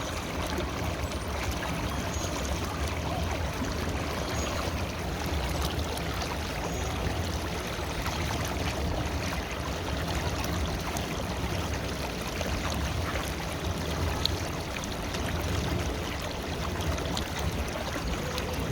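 River water flowing steadily, an unbroken rushing and gurgling.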